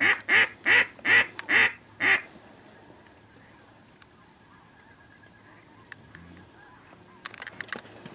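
Duck call blown by a hunter: a run of six loud, evenly spaced quacks about 0.4 s apart, calling to mallards circling overhead. It stops after about two seconds, and only a few faint ticks follow near the end.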